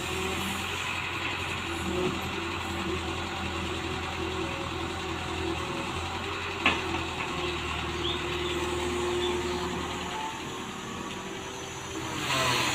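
Excavator's diesel engine running steadily, with a mid-pitched tone that comes and goes and a single sharp knock about two-thirds of the way in.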